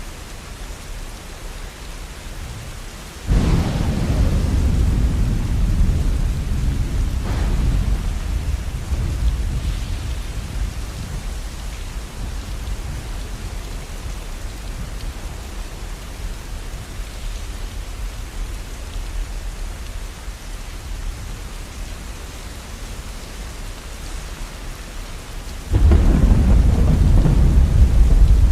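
Steady rain with thunder. A low roll of thunder breaks suddenly about three seconds in and rumbles away over several seconds, and another begins near the end.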